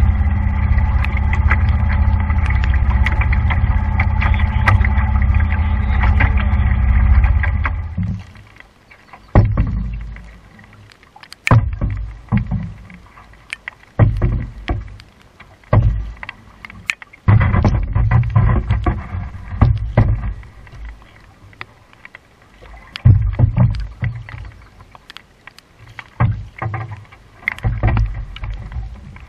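Instrumental music for about the first eight seconds. Then a wooden paddle dips and pulls through the water in strokes about every two seconds, with splashing and low rumbles on the microphone.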